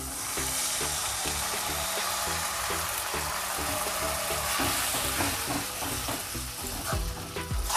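Water poured into a hot wok of sauce-coated cauliflower pakoras, sizzling loudly and steadily, with a metal spatula stirring and scraping the pan near the end.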